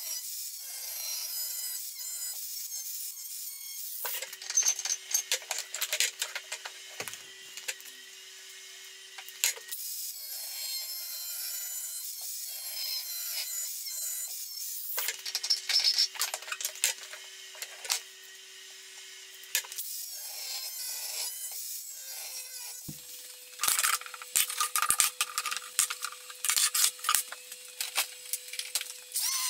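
Cordless angle grinder cutting through a steel bolt clamped in a vise, throwing sparks: three bouts of harsh grinding, each about five seconds long, separated by quieter stretches.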